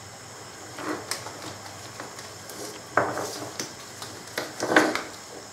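Tools being handled on a tabletop: a soldering iron set down and corded tools picked up. A few light knocks and clatters, the loudest near the end.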